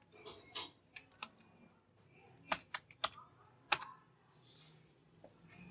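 Typing on a computer keyboard: a few scattered, irregular keystrokes with pauses between them, one sharper key hit a little after the middle.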